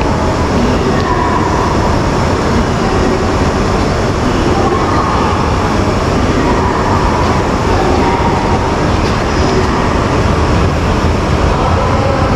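E5-series Hayabusa Shinkansen pulling out of the platform and gathering speed past the camera: a loud, steady rolling rumble of the train's wheels and running gear, with a faint whine coming and going.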